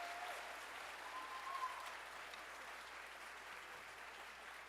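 Theatre audience applauding, with a short high whoop about a second in; the applause slowly dies down.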